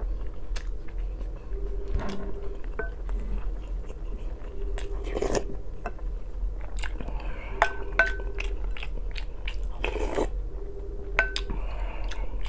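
A man chewing and biting food close to the microphone as he eats borscht with a wooden spoon and bites of sausage, with many short sharp clicks scattered through it.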